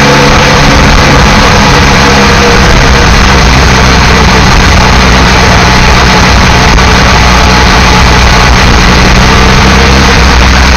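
Motorcycle-and-sidecar engine running steadily at low road speed in second gear, very loud and close, with a continuous rushing noise over it.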